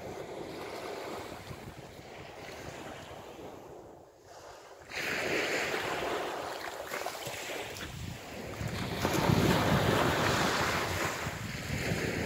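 Small sea waves washing onto the beach, with wind rushing over the microphone. The noise jumps suddenly louder about five seconds in and is loudest a few seconds later.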